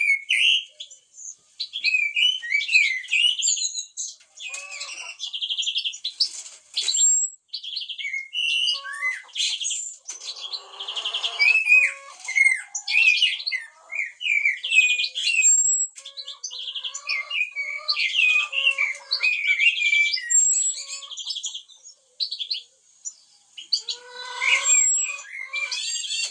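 Common blackbird and other songbirds singing together: a dense, varied stream of chirps, warbled phrases and short trills with brief pauses between bursts.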